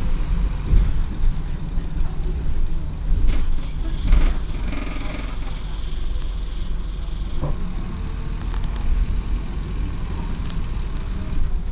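Inside an Optare Solo single-deck bus under way: a steady low rumble of engine and road noise, with the fittings rattling and a few sharper knocks.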